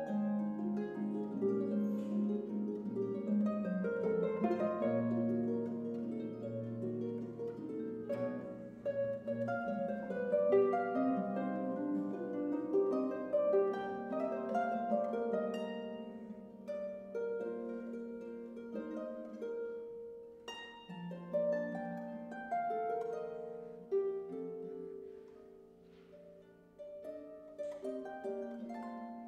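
Solo concert pedal harp playing a Baroque sonata: a continuous flow of plucked notes that ring on. The playing thins out and grows softer in the last third, then picks up again near the end.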